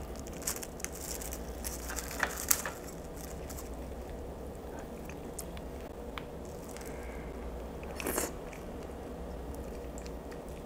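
Close-miked eating sounds: chewing, with sharp clicks of wooden chopsticks against the bowl and pan, the loudest about two and a half seconds in and a short cluster around eight seconds.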